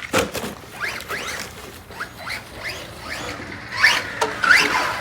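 Electric motor of an RC rally car whining up in a string of short rising bursts as the throttle is blipped, with scattered clicks and knocks between them.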